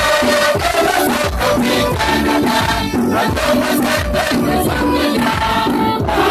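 Church choir singing together, men's and women's voices, over a steady percussion beat.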